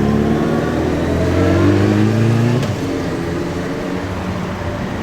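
A motor vehicle engine accelerating, its pitch rising slowly. A little past halfway through it drops away abruptly, leaving quieter road noise.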